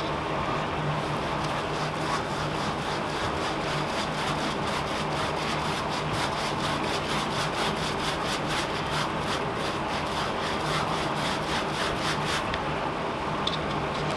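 Foam sponge brush spreading Mod Podge sealant over the faceted diamond drills of a diamond painting: rapid back-and-forth rubbing strokes, several a second, that stop near the end, over a steady background hum.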